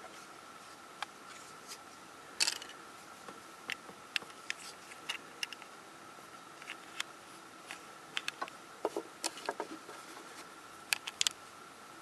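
Plastic pieces of a MoYu Weilong 3 (AoLong) speedcube clicking and tapping as corner and edge pieces are handled and fitted into the partly assembled cube: scattered small sharp clicks, a few louder, over a faint steady hum.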